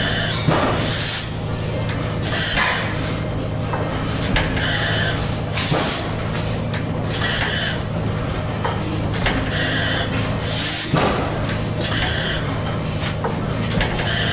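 Antique stationary gas engines running: a steady low drone with a hissing puff that repeats roughly every second or so.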